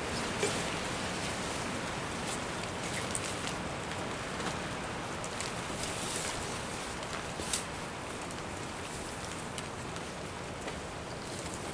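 Steady rain falling, with scattered drops ticking sharply now and then, the loudest about seven and a half seconds in.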